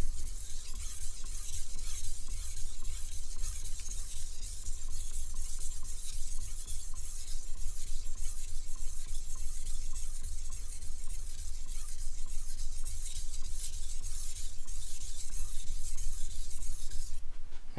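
Steel knife edge stroked repeatedly back and forth on a wet whetstone, a steady gritty scraping that stops shortly before the end. These are full sharpening strokes on one side of the blade, raising a micro burr along the edge.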